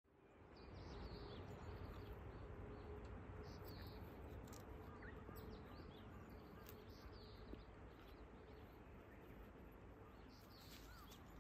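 Faint outdoor ambience: scattered short bird chirps over a low steady hiss and rumble, with a faint steady hum through most of it that dies away near the end.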